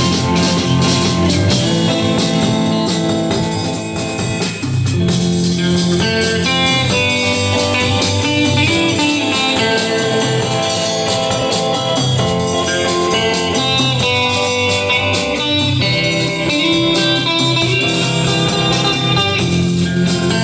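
A band playing an instrumental rock tune, an electric guitar carrying the melody over bass and drum kit.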